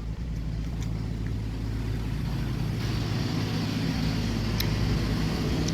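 A motor vehicle's engine running steadily with a low hum that grows slightly louder, joined by a hiss about three seconds in.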